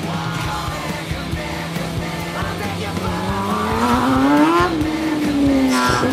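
Rock music with singing, mixed with a Formula SAE race car's engine that rises in pitch about three seconds in and eases back near the end as the car accelerates across the course.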